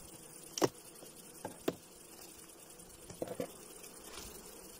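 Wooden beehive frames being handled in the hive box, giving a few sharp clicks and knocks: the loudest about half a second in, two more around a second and a half in, and a short cluster around three seconds in.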